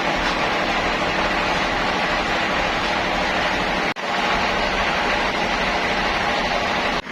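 Sawmill machinery running with a loud, steady mechanical noise, briefly cut off about four seconds in.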